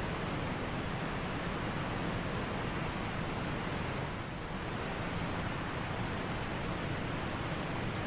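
Steady rushing of a waterfall pouring over a rock ledge into a pool.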